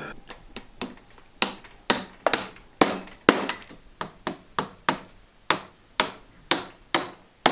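Small hammer driving tacks into the thin bent wooden rim of a wanigan box, a steady run of sharp taps about two to three a second, some harder than others. The tacks are driven while the freshly bent wood is still supple, so it won't split, and they clinch themselves on the far side.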